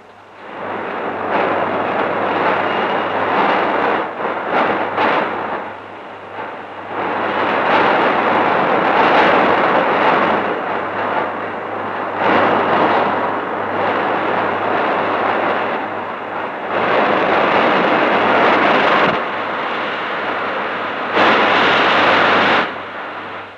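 Loud, dense rushing industrial din from a steam locomotive works' erecting shop while fitters strip an engine, over a steady low hum. The noise comes in blocks of a few seconds that start, stop and change in level abruptly.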